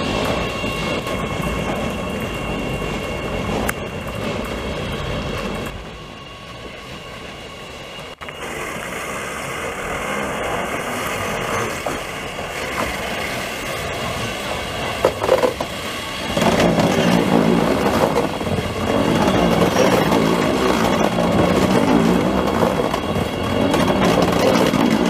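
Oslo Metro MX3000 electric metro train running along the track. The sound dips briefly, then another train approaches and passes close by, and from about two-thirds of the way in the sound grows louder and fuller as it goes past.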